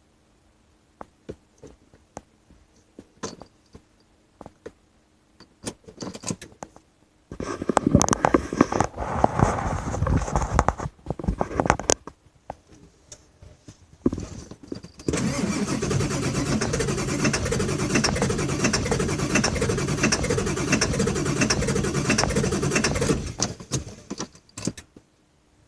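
Ford 7.3 L Power Stroke diesel V8 cranking on the starter in two long tries, about four seconds and then about eight, that end without the engine keeping running: a hard start that the owner puts down to injectors needing replacement. Light clicks and a key rattle come before the first try.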